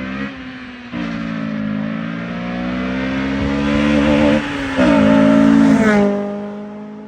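Honda Civic engine at high revs on a hard flyby, its pitch climbing slowly, with a short dip about four seconds in, then dropping in pitch and fading as the car passes.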